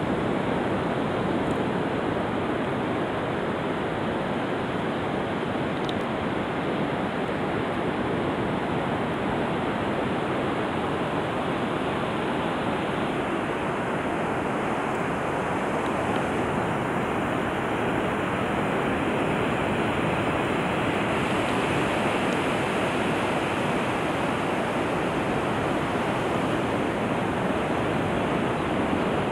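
Ocean surf on a sandy beach, a steady, unbroken rush of noise with some wind.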